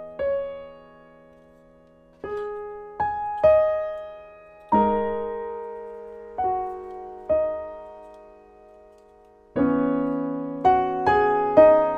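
Slow solo piano background music: single notes and chords, each struck and left to ring out, with a short pause near the start and fuller chords near the end.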